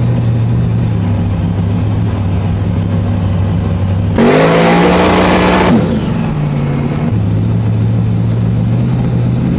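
V8 engine idling, revved once about four seconds in: the pitch climbs quickly and holds loud for about a second and a half, then falls back to idle.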